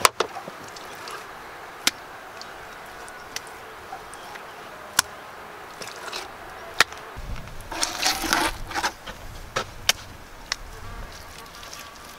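Hand work with a bucket of wet clay: a sharp knock as the bucket is set down, scattered sharp clicks, and a scraping rustle with a low rumble about eight seconds in.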